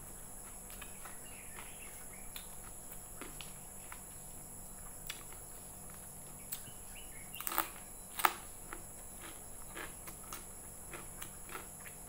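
Close-miked eating sounds of a person chewing fried vermicelli and other food by hand: soft wet chewing and mouth clicks throughout. A louder cluster of bites comes about seven and a half seconds in, and a sharp click comes about eight seconds in.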